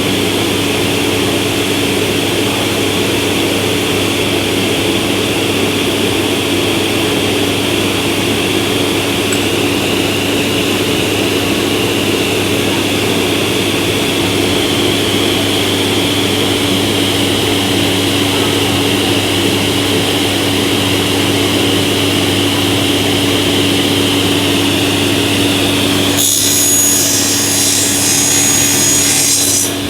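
Industrial sliding table panel saw with a scoring blade and a main blade running steadily with a constant hum and whine. About 26 seconds in, a board is cut for about four seconds, adding a bright hissing cutting noise.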